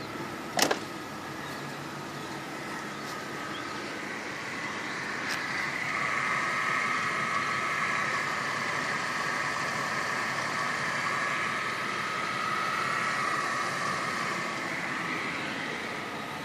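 1997 Ford Falcon EL idling after a cold start, a steady hum with a higher, even tone that swells from about four seconds in and eases near the end. A single sharp click sounds about half a second in.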